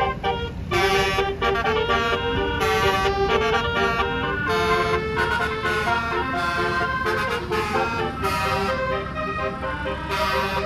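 A bus's multi-tone telolet horn plays a melody of stepped notes over the low rumble of the bus. Short bursts of hiss come between the phrases.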